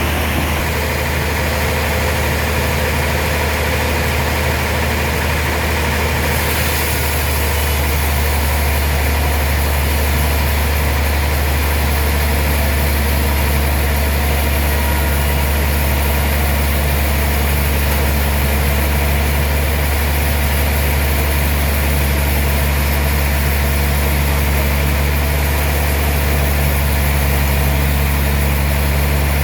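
Heavy sawmill machinery running steadily with a deep, constant engine-like hum and a wash of mechanical noise, its tone shifting slightly about six seconds in.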